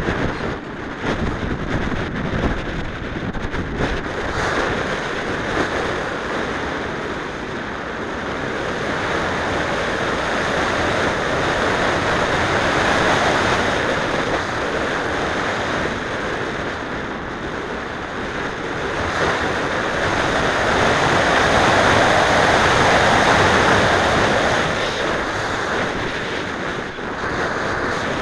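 Air rushing over the onboard camera microphone of an unpowered slope-soaring RC glider in flight, a steady wind roar that swells louder twice as the glider speeds up and banks.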